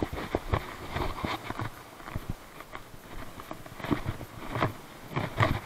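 Footsteps on breakwater boulders and concrete tetrapods: irregular scuffs and knocks, a few each second, as someone clambers over the rocks.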